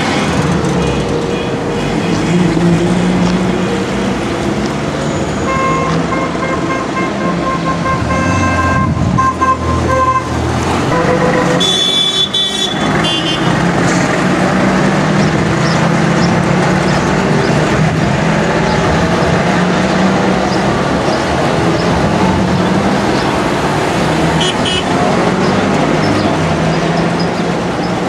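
A line of Trabants driving past one after another, their two-cylinder two-stroke engines running. Car horns toot several times: a long series from about five to ten seconds in, a sharp toot about twelve seconds in, and a short one near twenty-five seconds.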